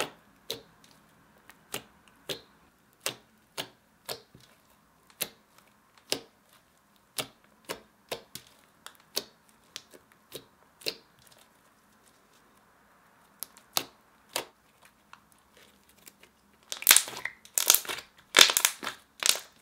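Glossy glue slime, made slick with lotion and baby oil, clicking as fingers poke and press into it: sharp single clicks about every half second, then a louder run of quick clicks and crackles near the end.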